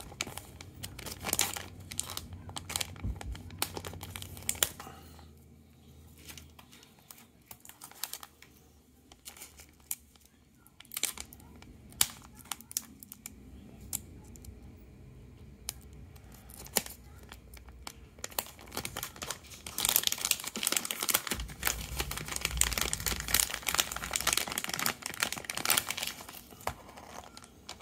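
Holographic mylar zip bag crinkling and crackling as hands pull and tear it open without scissors. The crinkling grows denser and louder about two-thirds of the way through.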